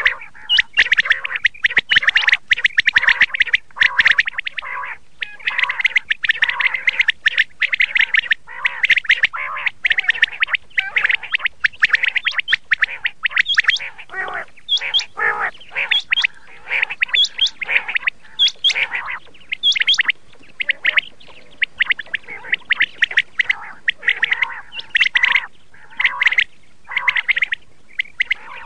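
Quail calling in a rapid, dense stream of short calls, several a second, with brief pauses about two-thirds of the way through and near the end.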